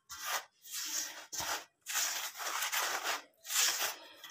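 A hand mixing wheat flour and water into dough in a stainless steel bowl: about six rubbing, scraping strokes with short pauses between them.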